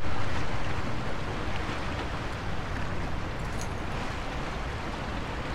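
Steady noise of wind and small waves washing against jetty rocks, with wind rumbling on the microphone.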